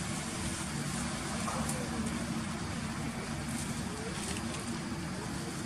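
A steady low hum over a hiss of background noise, with faint voices over it.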